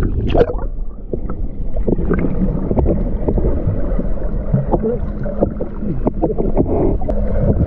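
Sea water sloshing and gurgling around an action camera held at and just below the surface, heard muffled with a low rumble and scattered small splashes and knocks.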